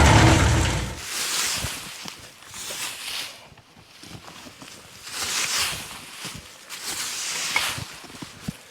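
Kubota LX2610 compact tractor's three-cylinder diesel engine running, then shut off abruptly about a second in. Afterwards there are several soft swells of rustling noise.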